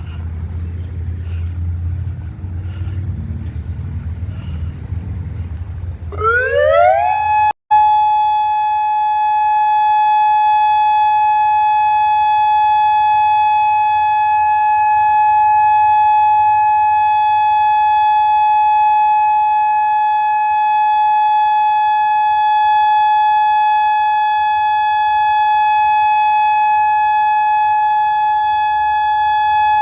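Federal Signal Modulator 5020B outdoor warning siren winding up about six seconds in: the pitch rises for about a second, then holds one steady, loud tone, the Full Alert signal of a siren test. Before it starts there is low wind rumble on the microphone.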